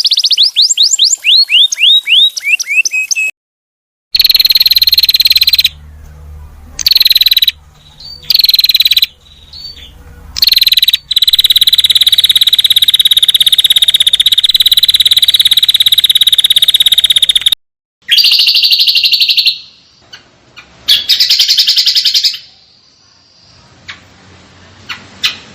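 A string of recorded songbird calls joined by abrupt cuts: first a quick series of sweeping high chirps, then a long, fast, high trill held for several seconds, then shorter bursts of trilling.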